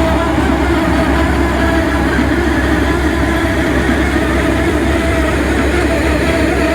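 Drilling rig running steadily as it drills slowly into bedrock: a constant engine-like drone with a steady low rumble and a few held tones.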